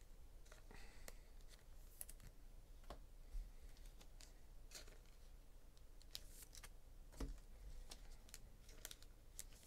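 Near silence with faint, scattered clicks and light taps at irregular intervals.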